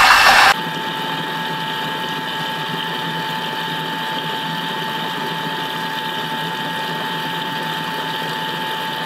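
Vorwerk Thermomix TM5's motor running steadily on speed 4, its blade stirring the liquid in the mixing bowl during the last seconds of the timed cooking programme: an even whirr with a constant whine that starts about half a second in.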